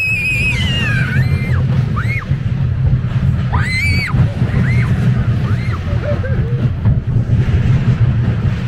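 Child screaming on a small steel roller coaster: one long high scream at the start and another about three and a half seconds in, with shorter yelps between and after. Beneath them runs a steady rumble of the coaster train on its track, mixed with wind on the microphone.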